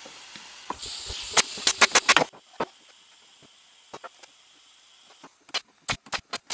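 Stapler driving staples into the wooden boards of a bee hive box. A quick run of about six sharp snaps comes over a hiss about a second in, and four more snaps follow near the end.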